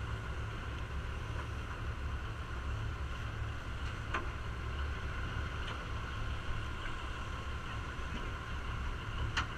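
Steady low rumble of a fishing head boat's engine with water washing along the hull, and two sharp clicks, one about four seconds in and one near the end.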